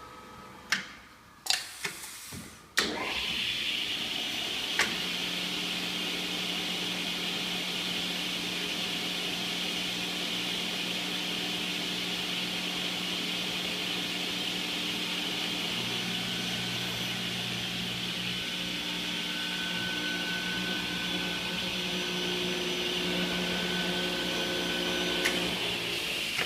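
Vertical panel saw switched on with a few clicks, its motor and blade spinning up about three seconds in and then running steadily with a high hiss and a low hum, the hum shifting slightly after the middle.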